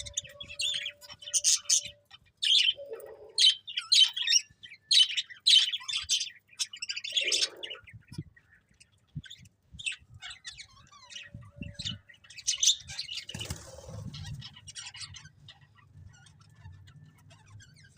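Budgerigars chirping and chattering in quick high bursts, busiest in the first half and thinning out after about eight seconds. A faint low hum sits under the last few seconds.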